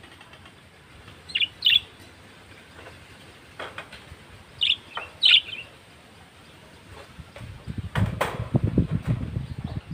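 Pet budgerigars chirping in a wire cage: two quick pairs of short, sharp chirps, one about a second and a half in and one about five seconds in. A burst of low rustling follows about eight seconds in.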